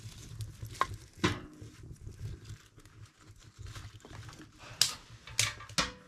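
Newly lit kindling fire in a small steel wood stove, crackling with scattered sharp snaps and pops, along with the knock of sticks being fed into the firebox.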